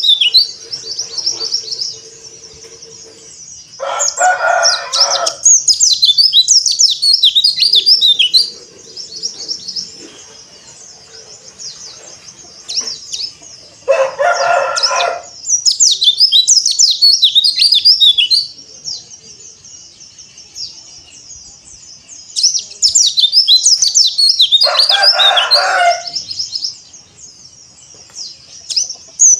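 White-eye (pleci, Zosterops) singing in bouts of rapid, high-pitched chirping twitters, with pauses between bouts. A louder, lower call of about a second and a half sounds three times, roughly ten seconds apart.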